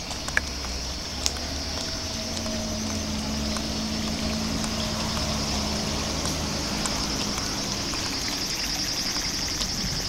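Insects such as crickets or other evening singers chirring steadily at a high pitch, with a low drone underneath for several seconds in the middle. A couple of sharp clicks come near the start.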